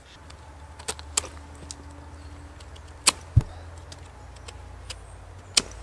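A small fixed-blade knife (the Heidi Production Knife No.1) cutting into a wooden stick on a chopping block: a scattering of sharp wooden clicks and cracks, with a dull knock on the block about three and a half seconds in.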